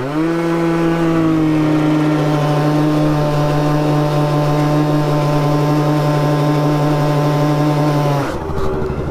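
Two-stroke 50cc scooter engine revving up quickly, then held at steady high revs for about eight seconds before the throttle is let off near the end.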